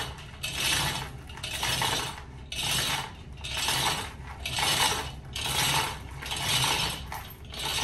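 Manual chain hoist being worked hand over hand, its steel hand chain rattling through the hoist in a regular rhythm of pulls, about one a second.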